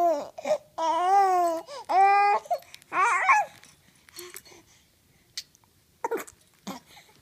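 Baby babbling: four drawn-out, sing-song vowel sounds, each rising and falling in pitch, over the first three and a half seconds, then a pause with a couple of short soft sounds near the end.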